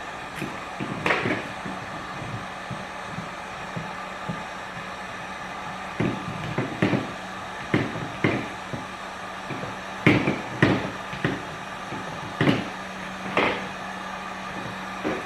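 Irregular knocks and taps of hard plastic being handled and pressed, with a steady low hum underneath that stops near the end.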